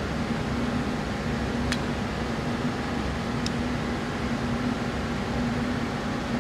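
Steady machine hum with a constant low tone, and two light metallic clicks, just under two seconds and about three and a half seconds in, as hands move the timing chain on a 3.7 L V6 engine.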